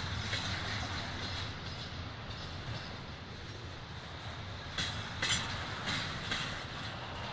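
BNSF double-stack intermodal freight train rolling past, a steady rumble of wheels on rail. Sharp clacks break in at the start and again four times, about half a second apart, from about five seconds in.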